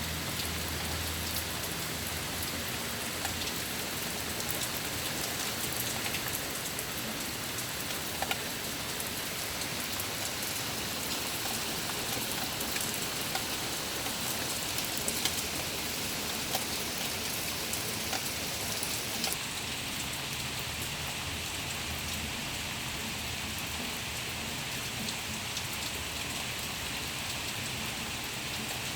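Steady rain falling and pattering on surfaces, with individual drops ticking now and then.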